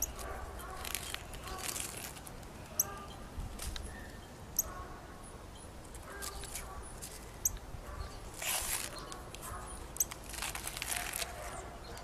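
Crackly rustling in several bursts as collard leaves are peeled away from a freshly cast hypertufa bird bath, with a few short, high-pitched ticks in between.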